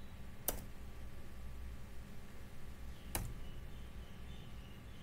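Two single computer key presses, a sharp click each, about two and a half seconds apart, over a faint low hum.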